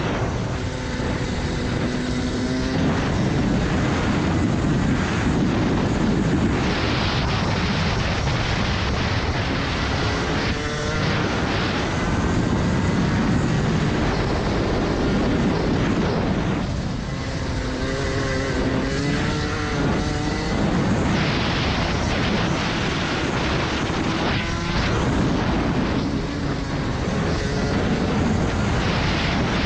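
Restricted Rotax Max Senior 125 single-cylinder two-stroke kart engine at full racing pace, its pitch climbing as the kart accelerates and falling away as it slows for corners, several times over.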